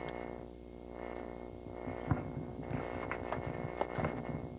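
Steady electrical mains hum with a dense buzz of overtones, broken by irregular crackles and clicks that come more often in the second half.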